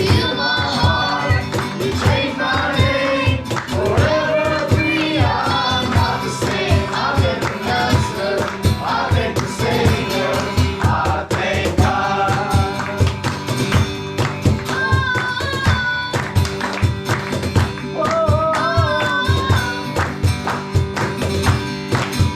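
Live worship song: voices singing together over a band with a steady beat.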